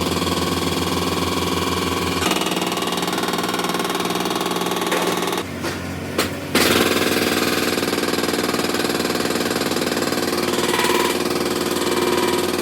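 Hydraulic breaker hammering rapidly and steadily, with a diesel engine running underneath. The hammering drops away for about a second, roughly halfway through, then starts again.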